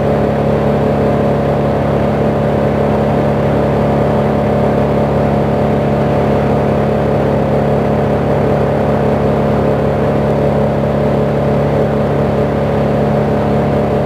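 Heavy machinery engine running steadily, an even drone that does not change.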